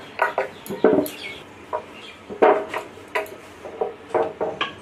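Wooden rolling pin rolling and knocking on a wooden board: a series of irregular short knocks and clatters.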